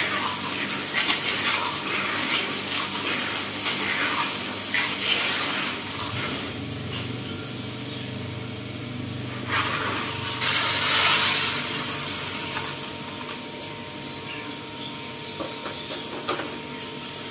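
Freshly roasted coffee beans rattling and clinking as a spoon stirs them in a plastic basin, mixing in chili powder and butter. After about six seconds the rattling dies down, and a brief hissing rush comes about ten seconds in.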